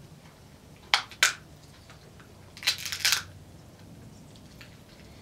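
King crab leg shell being cracked and snapped apart by hand: two sharp cracks about a second in, then two longer crunching breaks around three seconds in.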